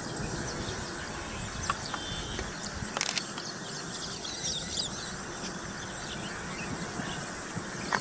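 Many small birds chirping in short, high calls over a steady outdoor background hiss, with a sharp click about three seconds in.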